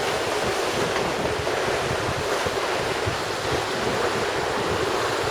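Sea water rushing past a sailboat's hull as it sails fast in strong wind, with wind buffeting the microphone: a steady rushing hiss.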